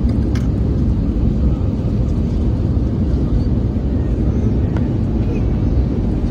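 Steady low roar of an Airbus A320neo in flight, heard from inside the cabin: Pratt & Whitney PW1100G geared turbofan engines and airflow noise, with a few faint clicks.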